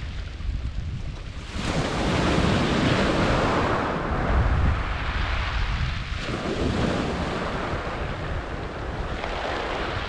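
Sea waves breaking on a shingle beach: a wave crashes about a second and a half in and another swells up around six seconds, with water rushing up and over the pebbles between them. Wind rumbles on the microphone throughout.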